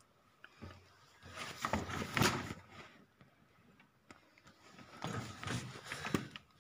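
Close handling noise: irregular rustling and scraping with a few light knocks, in two louder stretches, one starting about a second in and one about five seconds in. No engine is running.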